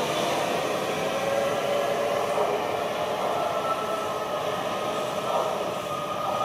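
A train running on the rails: a steady rumble and hiss of wheels and running gear, with a faint whine that rises slightly in pitch.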